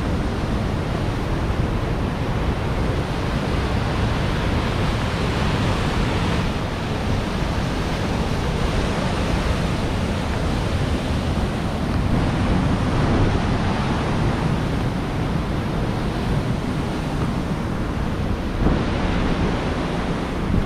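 Wind buffeting the microphone over the steady rush of a snowmelt mountain stream and waterfall.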